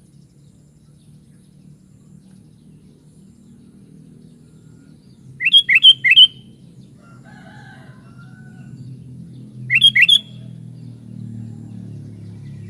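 Sooty-headed bulbul (kutilang) calling: a quick phrase of four short rising notes about halfway through, then two more a few seconds later, over a steady low hum.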